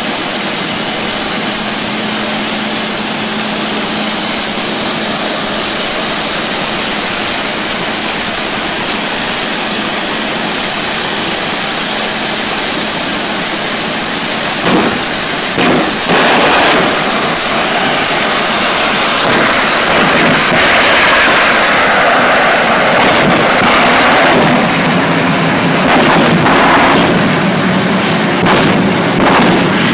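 Jet dragster's turbine engine running: a steady high-pitched whine over a loud rushing roar. The whine climbs slightly in pitch at the very start, then holds, and the rushing grows louder in the second half.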